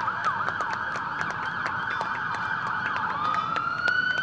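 Several emergency-vehicle sirens sounding together as a motorcade arrives. Their pitches sweep up and down and overlap, quick cycles at first and a slower rising wail near the end, with short sharp clicks scattered through.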